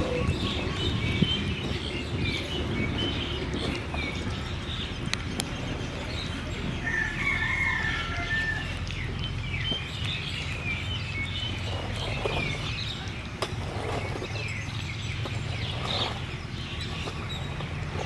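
Chickens clucking and small birds chirping over a steady low background rumble, with one longer call about halfway through.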